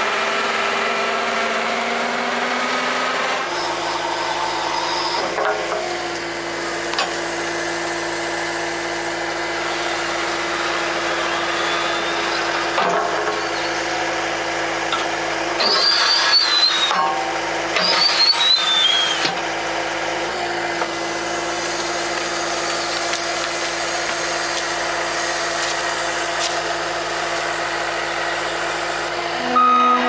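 John Deere 333G compact track loader's diesel engine running steadily while it works a hydraulic tree spade into the ground. About halfway through come two short bursts of high, falling squeals as the spade blades dig in.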